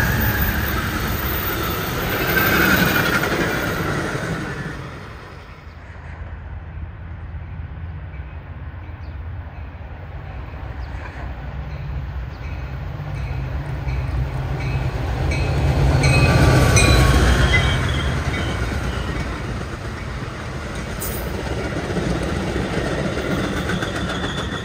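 An Amtrak passenger train runs past and away on its steel wheels. About 12 seconds later an oncoming Metra diesel commuter train's rumble builds to a peak about two-thirds of the way in as it passes, then eases off.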